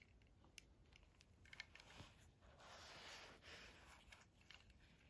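Near silence with faint handling noise: fingers turning a small die-cast Matchbox toy fire tanker truck, giving a few soft clicks and a light rubbing about midway.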